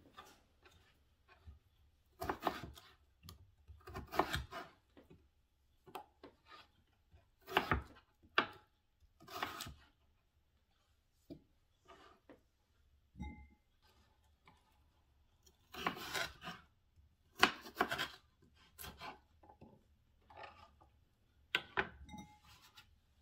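Chef's knife cutting red potatoes on a wooden cutting board: a string of short, irregular knife strokes through the potato and onto the board, with pauses between them.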